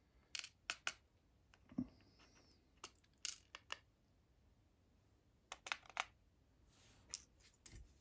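Small lock key pins and the brass lock plug clicking and tapping against a plastic pin tray as the pins are set out into its slots: about a dozen light, irregular clicks in small clusters.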